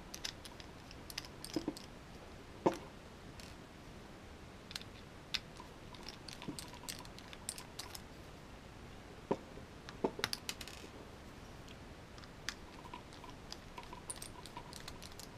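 Precision screwdriver unscrewing small stainless steel screws from a plastic housing: scattered light clicks and taps, with a few faint short squeaks.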